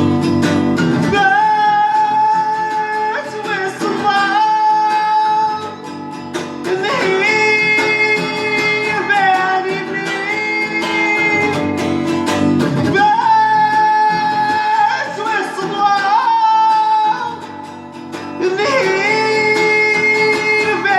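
Acoustic guitar accompanying a high wordless vocal line of long held notes that slide from one pitch to the next, in phrases of a couple of seconds.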